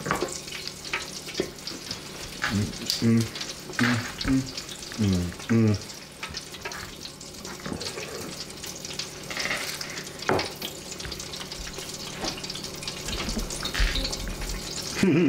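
Chicken frying in the hot oil of a T-fal FR8000 deep fryer: a steady sizzle with many small crackles and pops. A few short voiced murmurs come in its middle part.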